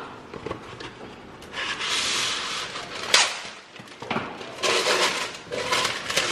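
Parchment paper rustling and crinkling in several bursts as it is fitted into an air fryer basket, with one sharp knock about three seconds in.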